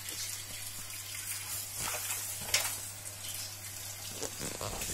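Kitchen tap running steadily into a sink, with a couple of light knocks.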